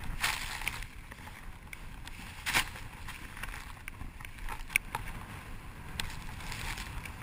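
Skis running through deep fresh powder snow: a steady whooshing hiss over the low rumble of wind on a helmet-mounted camera's microphone. A few sharp clicks and knocks break through, the loudest about two and a half seconds in.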